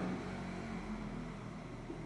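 A steady low mechanical hum, like a motor or engine running continuously, over faint background noise.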